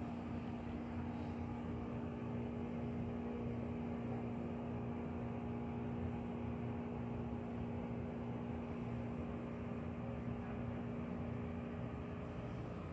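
Steady mechanical hum: an even drone with a constant low tone. No other events.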